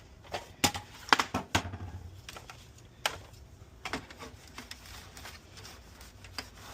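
Scattered light clicks and knocks of hands handling parts on a workbench, several close together in the first second and a half and single sharper ones about three and four seconds in.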